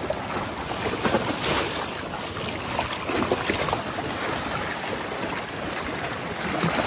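Sea water washing against rocks, with wind blowing on the microphone.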